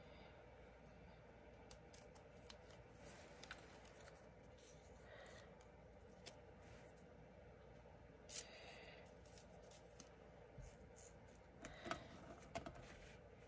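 Near silence with faint paper-handling sounds: light rustles and clicks of a die-cut cardstock piece being handled and set onto a card. There is a brief scratchy rasp a little past the middle and a few sharper clicks near the end.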